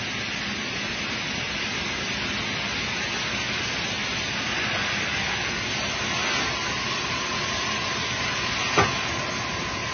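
OKK PCV-40 II vertical machining center running with a steady hissing noise. A faint steady whine joins about two-thirds of the way through as the spindle head comes down, and one sharp knock sounds near the end.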